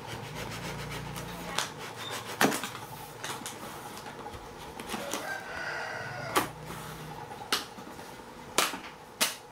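Cardboard laptop box being handled and its top flap pried open: a series of sharp taps and knocks of fingers on cardboard, with a short pitched call about five seconds in.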